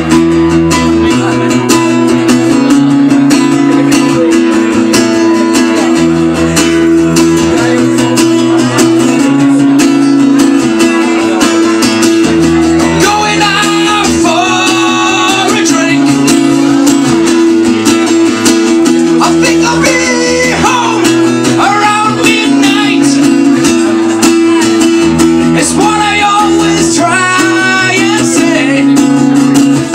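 Live acoustic punk-folk song: an acoustic guitar strummed steadily with regular chord changes, and a man singing a few phrases over it.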